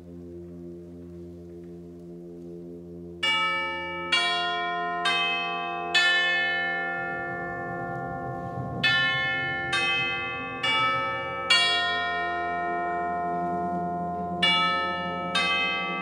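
Concert wind band holding a low sustained chord while tubular bells (chimes) strike ringing notes in groups of four, starting about three seconds in; the low chord swells louder about seven seconds in.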